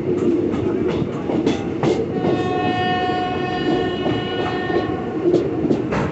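Moving train running with a steady rumble and wheel clicks over the rail joints, and a train horn sounding one steady note from about two seconds in, lasting about two and a half seconds.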